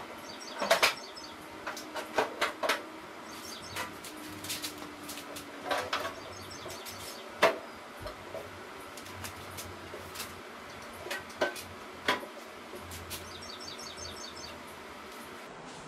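Scattered clunks and taps of sheet-metal engine tin being handled and pressed into place: an aftermarket fan shroud being seated on an air-cooled VW engine. The loudest knock comes about halfway through, and birds chirp faintly now and then.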